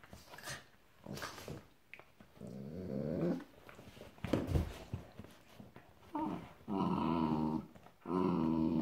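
Two dogs play-fighting, growling in drawn-out bursts: one after about two seconds, then three close together in the second half. Scuffling in between, with a single thump about halfway.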